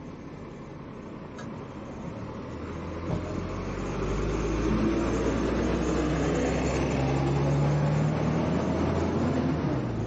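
Double-decker bus pulling away from the stop and passing close by, its engine rumble building over the first few seconds, staying loud with a steady low hum, then easing near the end.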